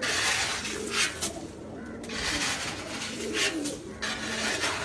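Many domestic pigeons cooing together in a loft, overlapping low, wavering coos, with several brief rustling sounds among them.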